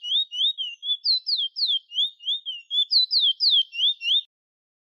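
Chestnut-bellied seed finch (bullfinch) singing a fast run of clear whistled notes, about four a second. Rising slurred notes alternate with higher falling ones, and the song breaks off about four seconds in.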